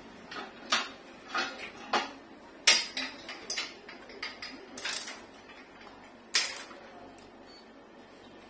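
Tools being handled: a run of about ten sharp clicks and clatters of hard plastic and metal over the first six seconds, as a clamp meter is got out and readied to measure the running current.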